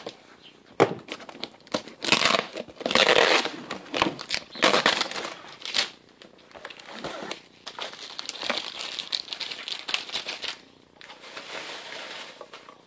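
Packing tape being ripped off a cardboard box in a series of rasping pulls, with crinkling of the tape. The rips are loudest in the first half and grow fainter near the end.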